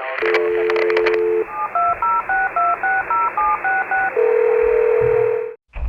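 Telephone dial tone, then a quick run of about eleven touch-tone (DTMF) key beeps dialing a number, then a steady single tone that cuts off abruptly near the end. The sound is narrow and thin, like a phone line.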